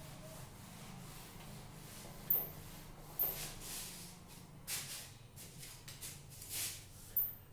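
Scattered soft rubbing and shuffling sounds at a whiteboard as a duster wipes the board and the teacher moves about, with a few brief high squeaks, over a steady low hum.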